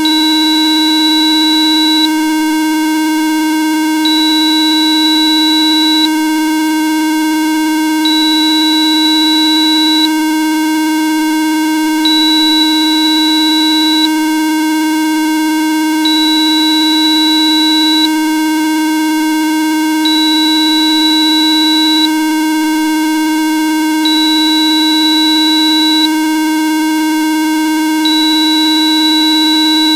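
Steady electronic sine-like tone at about 310 Hz with faint overtones, a Rife-style therapy frequency made with Rife Life Frequencies Pro software. Over it, a higher thin beep switches on for two seconds and off for two seconds, eight times. The tone steps slightly lower, to about 304 Hz, before the end.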